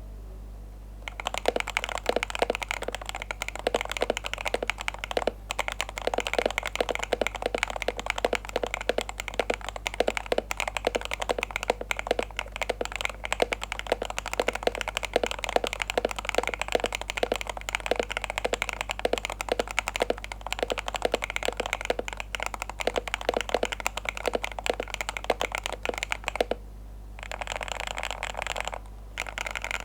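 Continuous fast typing on an AULA WIN60HE hall-effect keyboard: stock Leobog magnetic switches lubed with 205g0, an FR4 plate, stock keycaps and a tofu-style acrylic case, giving a rapid stream of key clacks. The typing starts about a second in and breaks off briefly near the end before resuming.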